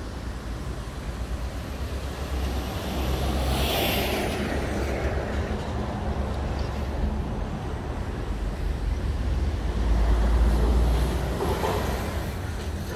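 Heavy truck engine running with a steady low rumble that grows louder about ten seconds in, and a brief hiss around four seconds in.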